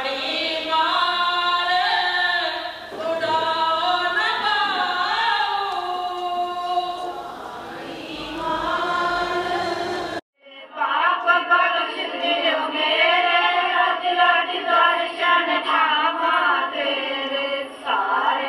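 Devotional hymn singing by voices. About ten seconds in it cuts off abruptly, and after a brief silence another stretch of singing begins, sounding thinner.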